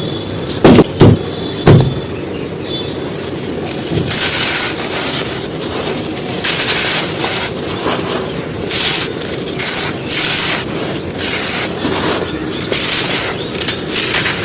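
Dry shapes of pressed black sand being crushed and crumbled, crisp and crunchy: three sharp cracks in the first two seconds, then steady gritty crumbling with repeated louder bursts.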